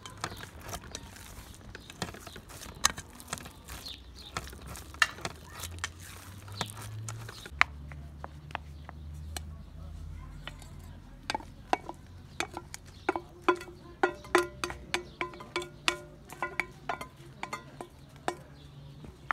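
Hands kneading dough in a stainless steel bowl, with soft slaps and small knocks. About halfway through, a wooden spoon starts scraping and knocking the inside of a stainless steel bowl to tip out a filling, each knock leaving the bowl briefly ringing.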